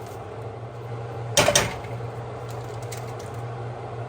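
A brief, sharp clatter about a second and a half in, over a steady low hum.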